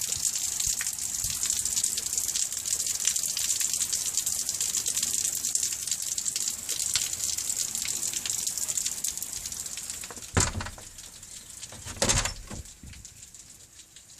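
Heavy rain pouring down in a steady hiss that drops away about ten seconds in. Two loud thumps follow, about a second and a half apart.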